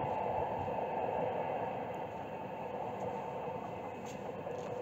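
Electric train moving away along the track, its steady rolling rumble slowly fading as it recedes.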